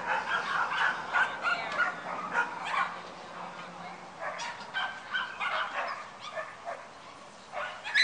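Dogs barking and yipping repeatedly in short, irregular bursts, easing off briefly near the end before starting up again.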